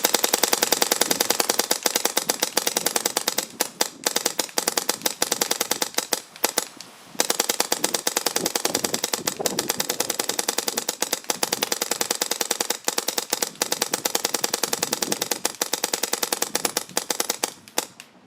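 Paintball marker firing long, fast strings of evenly spaced shots, a rapid ramping rate of fire. There is a brief pause about seven seconds in, and the shots thin out near the end.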